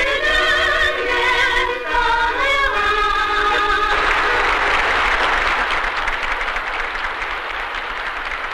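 A young woman singing the final phrase of a Kyrgyz song, her voice wavering in vibrato, cut off about four seconds in by applause that slowly fades.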